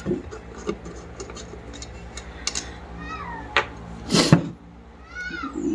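Metal clicks and knocks as a ceiling fan's body is being opened up, with one loud clatter a little over four seconds in. Two short squeaky cries, one falling and one arched, come about three and five seconds in.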